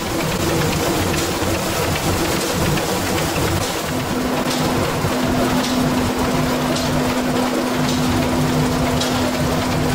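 Match-making machine running, a dense, steady clatter of its chain conveyor and the wooden match splints it carries. A steady hum joins in about four seconds in.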